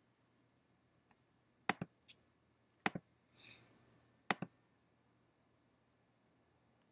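Computer mouse clicks: three clicks, each a quick press-and-release double tick, spread about a second apart, with a brief soft rustle between the second and third.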